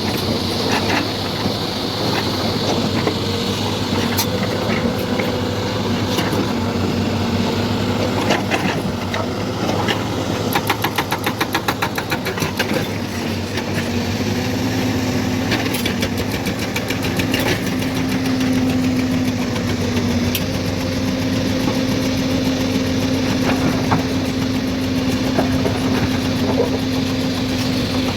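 Hydraulic excavator's diesel engine running steadily under work, with scattered metallic clanks and knocks and a fast rattling clatter about ten seconds in. The engine note climbs a little past the middle and holds there.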